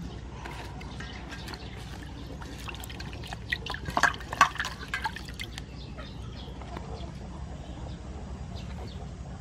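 Hands swishing tomatoes and green onions in a stainless steel bowl of water to wash them: irregular splashing and dripping, loudest about four seconds in.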